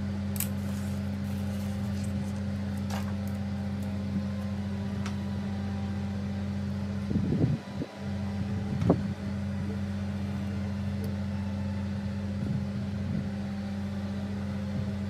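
Steady low mechanical hum of a running motor, with scattered light clicks from a plastic caliper and pen being handled against a helmet shell. A brief louder rustle and knock come about seven to nine seconds in.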